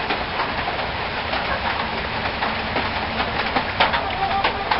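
Steady rain falling, an even hiss with scattered light taps.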